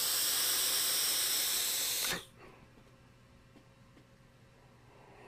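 A hit on an Innokin Axiom sub-ohm vape tank with its 0.5-ohm coil fired at 35 watts: a steady airy hiss for about two seconds that then stops.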